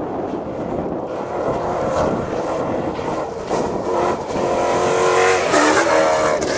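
A Toyota Hilux rally-raid truck at speed on gravel. At first there is mostly a rushing noise, then the engine note comes up and is loudest around five seconds in, changing pitch abruptly as the truck passes close by.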